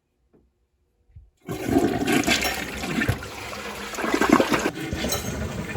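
Newly installed toilet flushing for the first time: near silence, then about a second and a half in a loud rush of water starts suddenly and keeps going.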